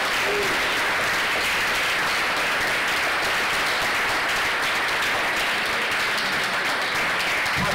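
Audience applauding: dense, even clapping at a steady level throughout.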